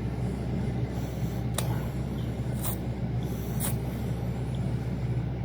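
A steady low hum, with three short clicks about a second apart in the middle.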